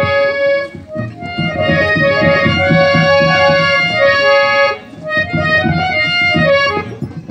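Harmonium playing a melody in sustained reedy notes over quick, rhythmic beats of a double-headed barrel drum (dhol): Gujarati Ramamandal devotional folk music. The music dips briefly about a second in and again just before five seconds in.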